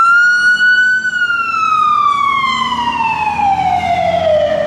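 Fire department ambulance siren sounding one long wail: the tone climbs to its peak about a second in, then falls slowly and steadily.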